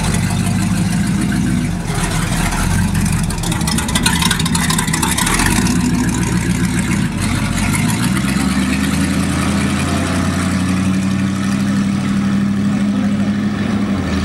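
Classic Chrysler's V8 idling with a deep, steady note, then pulling away at low speed; its pitch rises a little about eight seconds in as it drives off.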